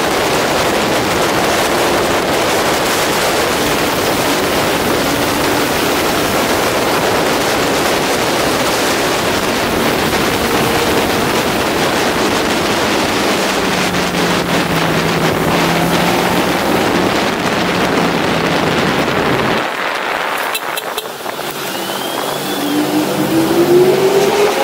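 Honda CBR600RR's inline-four engine running at speed under heavy wind rush on the on-board microphone. Near the end the engine revs up, its pitch rising.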